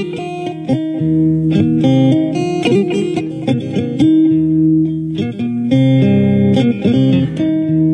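Background music led by a plucked guitar, playing a quick run of notes over low sustained bass notes.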